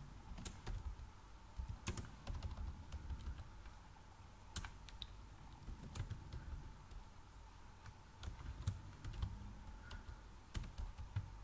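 Keystrokes on a computer keyboard: irregular typing, clicks coming in short uneven runs with brief pauses between them.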